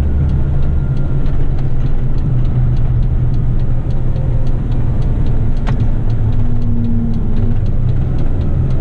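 Heavy rigid truck's diesel engine running steadily while driving, heard from inside the cab, with a faint, fast, even ticking over it.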